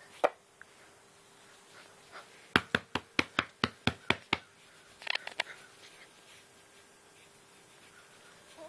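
A hand patting a dog during a belly rub: a quick run of about eight sharp pats, about five a second, then a few softer clicks about a second later.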